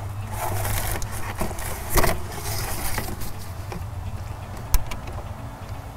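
Compressed-air blow gun hissing in two short blasts, blowing residual oil out from around a glow plug well in an open diesel cylinder head, over a steady low hum. A sharp click near the end.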